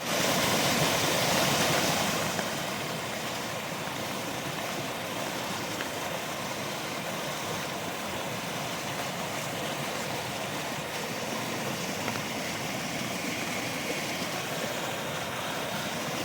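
Steady rush of fast-flowing stormwater after a downpour of about four inches of rain in four hours, louder for the first two seconds.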